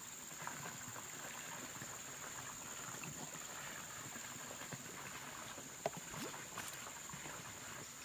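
Faint background noise with a steady high-pitched hum, broken by a single sharp click about six seconds in.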